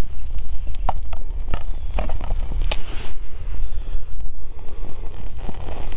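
Small flame burning in scraped waxwood tinder, with a few sharp crackles scattered through, over a steady low rumble of wind on the microphone.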